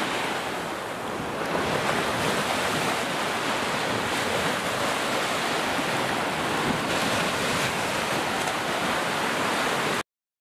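Sea surf washing onto a beach: a steady rushing of waves that cuts off suddenly near the end.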